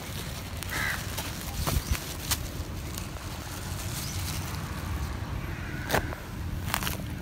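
A few short crow caws over a low, steady outdoor rumble like wind on the microphone, with a couple of light knocks.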